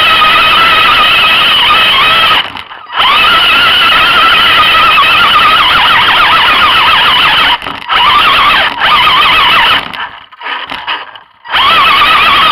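Electric motors and gearboxes of scale RC crawler trucks whining under throttle, the pitch wavering up and down as they work over rough ground. The whine cuts out about two seconds in, again briefly near eight seconds, and for about a second and a half near ten seconds as the throttle is let off.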